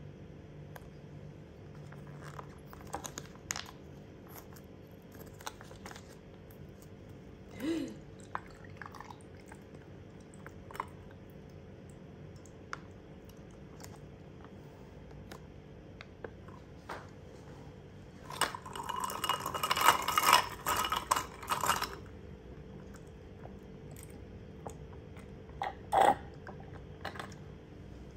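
Quiet handling of a glass of iced grape juice: scattered light clicks and taps of ice, glass and the plastic juice pouch. About two-thirds of the way in come some three seconds of loud slurping and gurgling through a drinking straw, with one more knock near the end.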